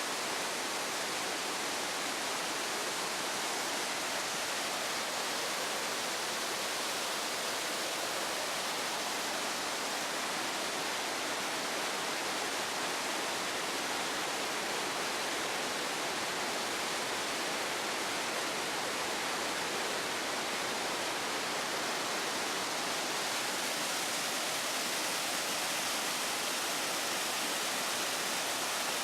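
Onogawa Fudō Falls: the steady rush of falling water, an even hiss weighted toward the high end with little low rumble.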